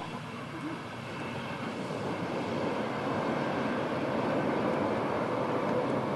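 A train's running noise, an even rushing rumble that grows slowly louder as the train approaches.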